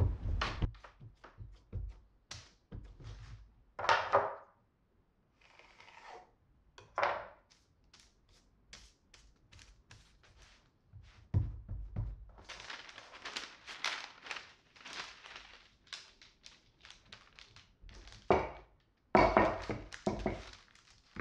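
Baking paper rustling and crinkling under hands on a wooden table, with scattered knocks and thumps. Near the end a wooden rolling pin is rolled over the paper, the loudest rustling of the stretch.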